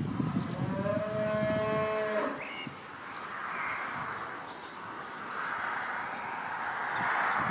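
A cow mooing once, one steady call of a little over a second, about a second in. Afterwards a rushing noise swells twice, with faint high bird chirps.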